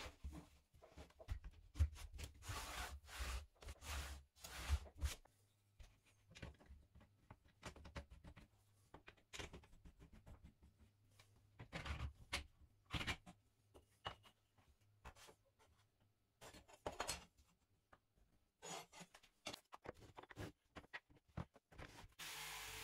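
Wooden strips and boards being handled, set down and fitted on a wooden bench: scattered light knocks, clicks and rubbing of wood on wood and laminate. Near the end, a steady rushing noise lasts about a second and a half.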